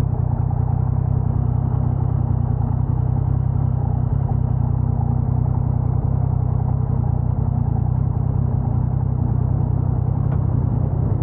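Motorcycle engine running steadily with an even low hum, picked up by a lavalier mic inside the rider's helmet. The rider is asking whether a noise from it can be heard, which he ties to a shim issue on the bike.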